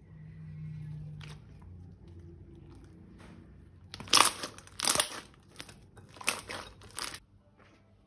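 A faint low hum, then about seven loud crinkling, crunching squeezes in quick succession over three seconds: crunchy slime-making material being handled and squeezed.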